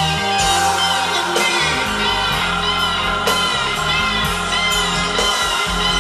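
Recorded pop-rock song played back through floor-standing hi-fi speakers into a room: full band with a lead electric guitar line whose notes bend and waver.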